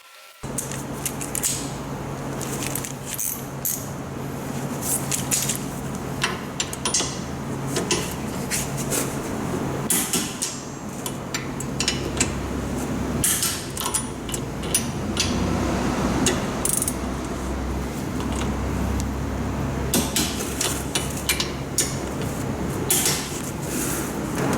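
Metal hand tools and parts clinking and clattering again and again over a steady low hum.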